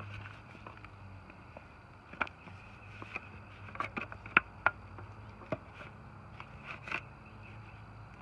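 Disposable aluminium foil pan crinkling and clicking at irregular moments as hands turn over raw chicken drumsticks inside it, with the sharpest clicks clustered about four seconds in and again near seven seconds.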